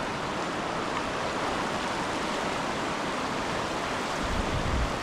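Steady rush of flowing river water, with a brief low buffet of wind on the microphone about four seconds in.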